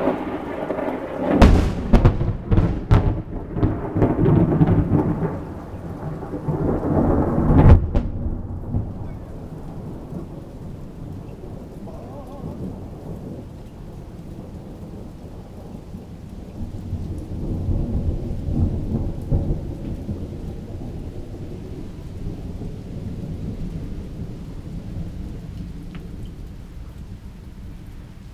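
Thunder: a close clap that crackles with several sharp cracks for the first eight seconds, then a long low rumble that swells again past the middle and slowly fades, with rain falling.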